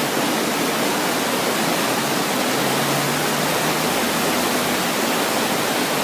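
Swollen river floodwater rushing, making a steady, even roar of water noise.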